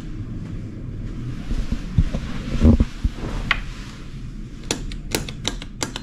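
Bedside wall light switches clicking several times in quick succession as the room lights are switched off, over a low rumble of camera handling with a few dull thumps a little earlier.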